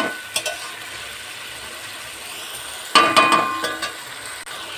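Chicken pieces sizzling steadily in their spice paste in a steel kadai as the meat is fried down (bhuna), with a short scrape of the steel spatula at the start. About three seconds in, a loud metallic clatter with a ringing tone as the spatula is set down against the pan.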